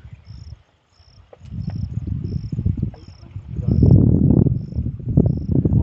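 Crickets chirping steadily, about three chirps every two seconds, over a loud, irregular low rumble that builds about a second and a half in and is strongest around the middle.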